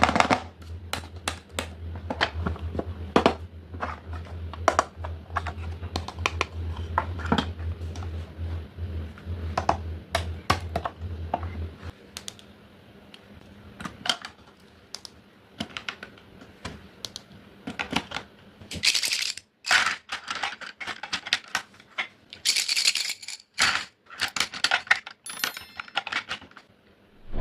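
Stationery items and their packaging being handled: a stream of light clicks and taps, with a few short bursts of crinkly packaging noise about two-thirds of the way through. A low hum underneath stops about halfway.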